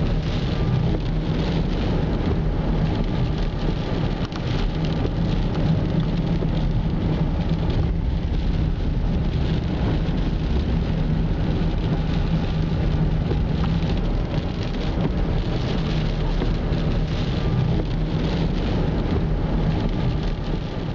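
Steady road noise inside a moving car on wet pavement: tyres hissing on the wet road over a constant engine and drivetrain hum, with the windshield wipers running.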